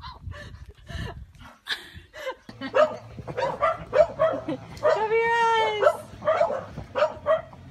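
Puppies yipping and whining in quick short calls; from about two and a half seconds in, a litter of corgi puppies yipping over and over, with one longer whine that rises and falls a little after five seconds.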